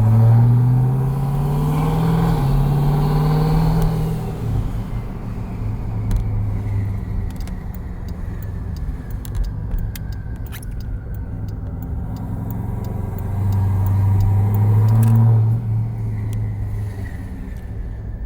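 Twin-turbocharged Jeep Grand Cherokee SRT V8 accelerating while driving, its loud exhaust note climbing for a few seconds and then settling into a steady cruise. It pulls up again briefly about two-thirds of the way through before easing off.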